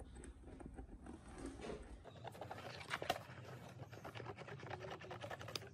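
Hand metal snips cutting through a stiff fibre gasket sheet (the asbestos-type gasket paper): a fast crackle of small crunching clicks, with one sharper snap about three seconds in.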